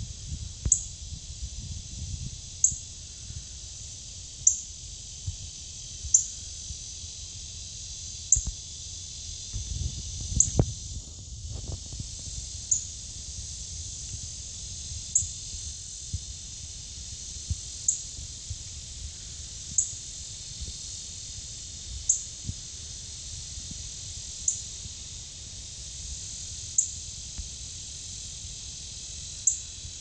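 Male northern cardinal giving short, sharp, high chip notes, one about every two seconds.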